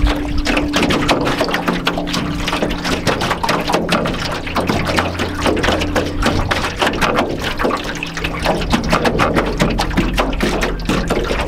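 Small lake waves lapping and slapping against the hull of an aluminum canoe, a continuous irregular splashing. Ambient music holds a few low steady notes underneath.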